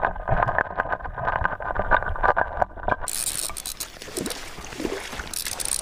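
Muffled underwater sound with a steady whir and many clicks while a brook trout is on the line. About three seconds in it switches abruptly to open-air stream noise with a spinning reel being cranked as the fish is brought in.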